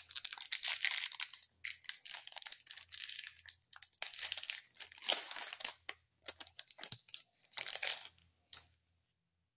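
A 2019-20 NBA Hoops foil trading-card pack being torn open and crinkled by hand, an irregular run of crackling that stops shortly before the end.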